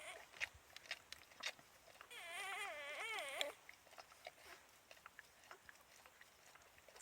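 A puppy eating, with sharp irregular clicks and crunches of chewing. About two seconds in, a high wavering whine lasts about a second and a half.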